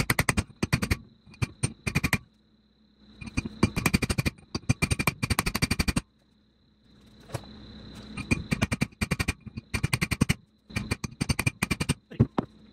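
Rapid runs of metal-on-metal hammer blows, several a second with short pauses between runs, as a big hammer drives a socket against a 1997 Honda Accord front wheel bearing assembly to force the press-fit bearing into the steering knuckle without a press.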